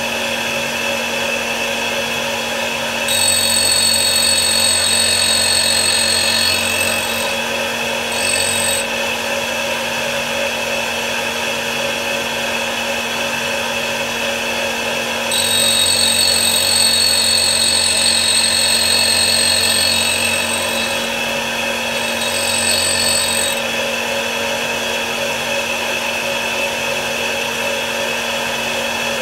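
Homemade tool grinder's motor running steadily with its 180-grit diamond cup wheel spinning, while a multi-flute countersink's cutting edges are ground against it. A high grinding whine comes in for two longer passes, about 3 s and 15 s in, and for two short touches around 8 s and 23 s.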